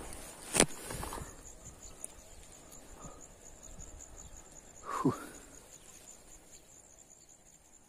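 Insects chirping in a steady, high, fast-pulsing trill. A sharp knock comes about half a second in, and a short sound falling steeply in pitch comes about five seconds in.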